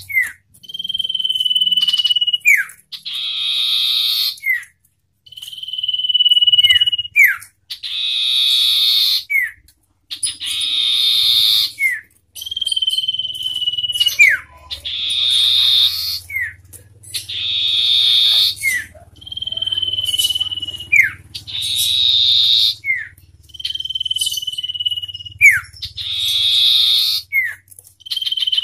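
Common iora song: long steady whistles that fall slightly and harsh scratchy chatters, each about a second and a half, taking turns with short breaks, most ending in a quick downward slur.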